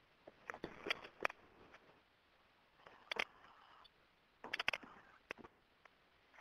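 Scattered clicks and taps in four or five short clusters, over faint room noise.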